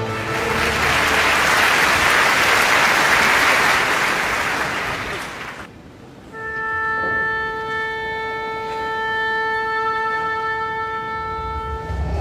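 Audience applause in a large concert hall for about six seconds, then it stops. A single instrumental note, near concert A, with a woodwind-like tone, is then held steady for about five and a half seconds.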